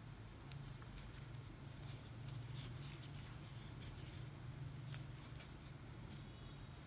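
Faint, scratchy little ticks of a metal crochet hook pulling cotton yarn through single crochet stitches. A low steady hum sits underneath.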